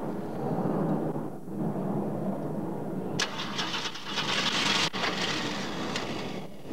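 Ford Maverick's engine being cranked over in an attempt to start it. A sharp hiss comes in suddenly about three seconds in and stops with a click near five seconds.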